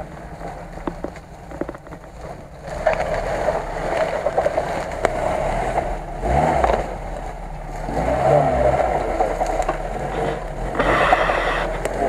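Lada Niva (VAZ-2121) engine pulling hard through forest undergrowth, picking up about three seconds in and rising and falling in revs. Branches and twigs crackle and scrape against the body, with a louder scraping rush near the end.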